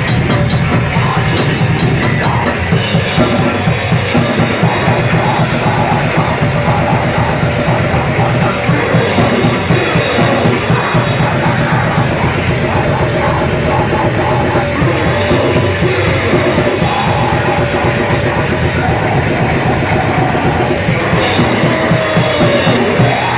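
Loud rock music with a drum kit.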